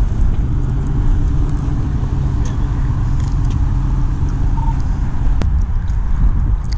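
A car driving by on the road, its engine and tyres making a steady low rumble that eases off about four seconds in. A single sharp click about five seconds in.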